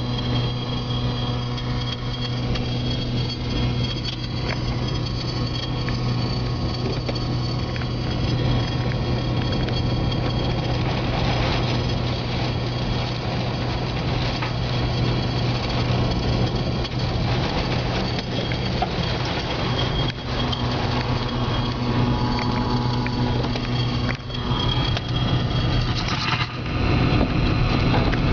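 Close tornado winds and wind-driven rain beating on a vehicle, heard from inside, over a steady low hum like an idling engine; it grows louder near the end.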